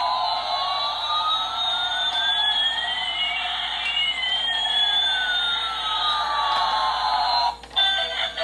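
Toy airplane's electronic sound effect: a siren-like synthetic noise with one tone gliding slowly up while another glides down across it over about seven seconds. It cuts off suddenly near the end, and its melody starts again.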